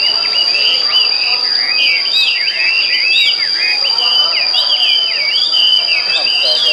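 Several caged songbirds chirping and whistling in quick, rising-and-falling notes that overlap each other, over a continuous high-pitched insect drone.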